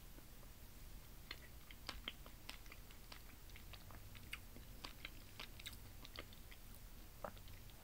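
Faint close-up chewing of a mouthful of fufu with a piece of chicken, mouth closed: soft, irregular wet mouth clicks.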